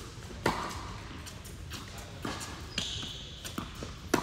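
Tennis ball hit back and forth in a rally on an indoor hard court: a loud, close racquet strike about half a second in and another near the end, with fainter distant hits and bounces between. A short high squeak sounds around three seconds in.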